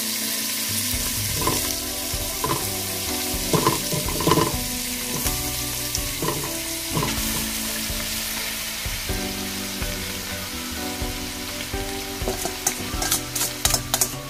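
Ground beef, sausage and pepperoni sizzling as they fry together in a pot while a spoon stirs them. A run of sharp clicks near the end is the spoon knocking against the pot.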